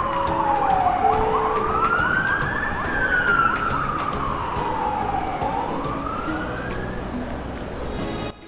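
A fire engine siren wailing, its pitch sliding slowly down and up in two long sweeps, over background music; it cuts off suddenly near the end.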